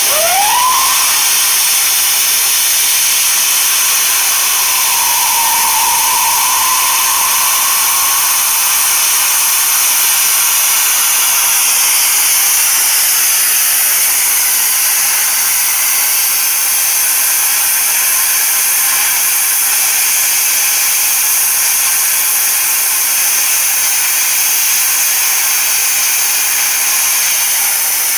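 Lotus LTP5500D air plasma cutter torch cutting through 3/4-inch steel plate: a loud, steady hiss of the plasma arc and air jet. A faint whistling tone rises near the start and another comes and goes a few seconds in.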